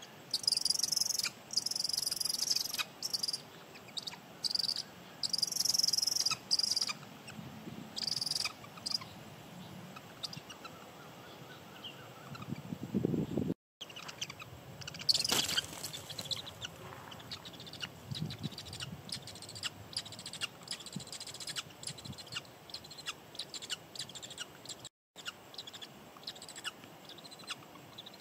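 Raptor nestlings calling: shrill, high-pitched calls repeated in bursts through the first nine seconds or so, then scattered short clicks and rustles in the nest with a few fainter calls.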